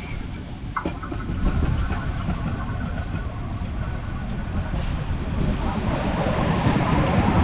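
Narrow-gauge steam locomotive of the Molli railway running into a station, a steady rumble with wheel and rail noise that grows louder as the train draws near. A sharp click comes about a second in.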